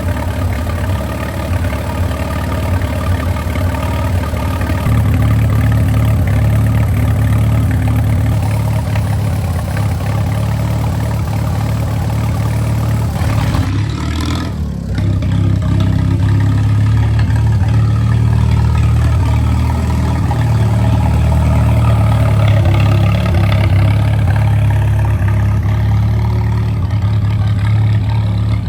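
Tractor engine running steadily, getting louder about five seconds in, with a short break around the middle before it runs on.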